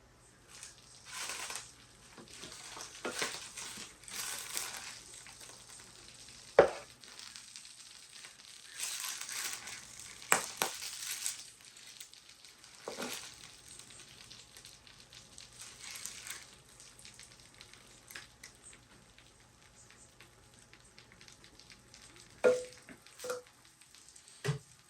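Chicken and dumplings being scooped out of a pot: wet, sloppy scraping and stirring noises, with a few sharp clinks of a utensil on cookware scattered through.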